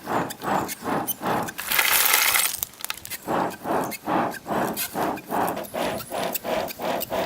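Stone being worked against stone in quick repeated strokes, about three a second, with a longer harsh scrape about two seconds in.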